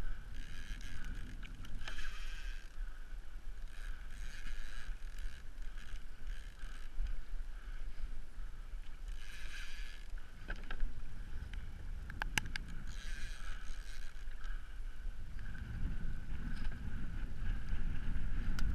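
Water sloshing and splashing against a kayak's hull in swells, in spurts about a second long every few seconds, over a low wind rumble on the microphone. A few sharp clicks sound about halfway through.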